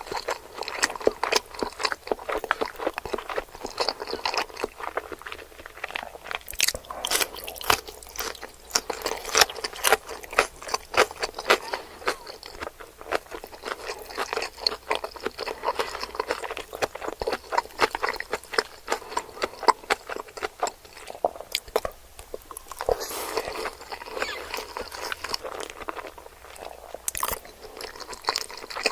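Close-miked eating of raw-fish sushi: continuous chewing with dense, rapid wet clicks and mouth smacks, easing briefly about three-quarters of the way through.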